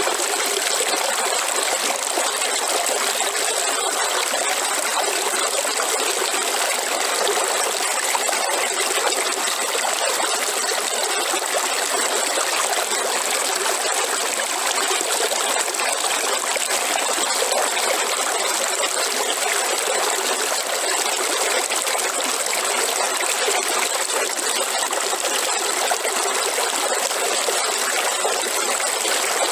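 River water flowing steadily: an even, unbroken rush with a bright hiss and little low rumble.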